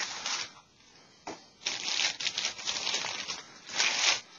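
Clear plastic packaging crinkling and rustling as it is handled, in uneven bursts, loudest from about one and a half seconds in until near the end.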